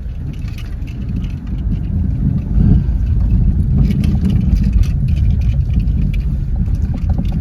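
Low, steady rumble of a moving vehicle's engine and road noise, growing a little louder about two seconds in.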